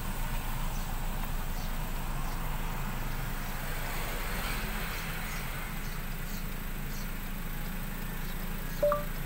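Steady low hum of a car being driven slowly, engine and road noise heard from inside the cabin.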